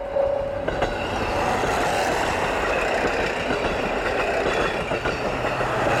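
KiHa 183 series diesel express train passing at speed close by: a steady loud rush of engines and wheels on rail, with clicking from the rail joints. A single-pitched bell tone repeating about every 0.6 s is heard at the start and is drowned out as the train arrives, about a second in.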